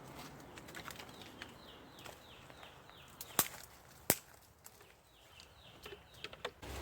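A bird calling in two runs of short, quick falling chirps, several a second, one run before the middle and one near the end. Two sharp clicks a little past the middle, less than a second apart, are the loudest sounds.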